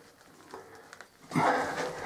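A person's short voiced sound, untranscribed, starting about a second and a half in after a quiet stretch with a couple of faint ticks.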